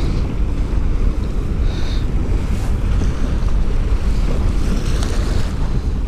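Heavy wind buffeting the microphone over choppy water, with a couple of brief splashes from waves.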